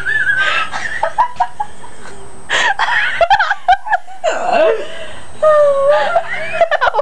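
People laughing and giggling in bursts, voices sliding up and down, with a few short sharp vocal sounds in between.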